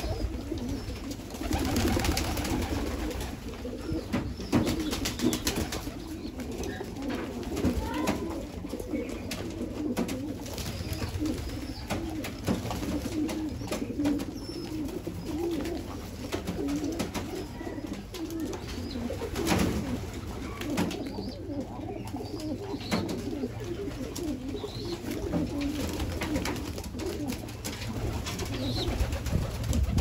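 A group of pigeons cooing together in a continuous low murmur, with scattered short clicks throughout.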